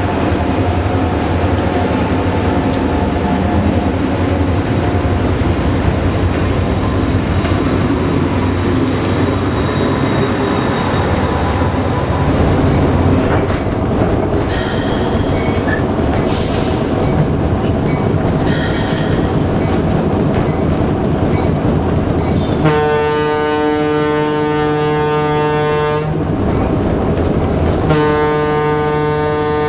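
Diesel locomotives rumbling steadily past in a freight consist. Then, from the locomotive cab, the air horn sounds two long blasts, the second still going at the end, as the engine nears a grade crossing.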